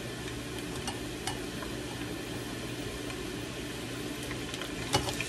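Raw cut potato fries deep-frying in hot grease in a small glass pot: a steady sizzling and bubbling hiss, with scattered sharp pops and one louder pop near the end.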